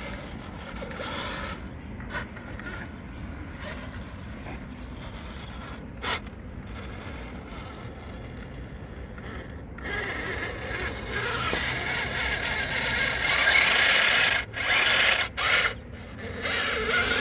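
Electric RC truck grinding through dirt: motor and spinning tyres scraping and churning. It gets much louder about ten seconds in and cuts out briefly three times near the end, as the truck hangs up on its rear bumper.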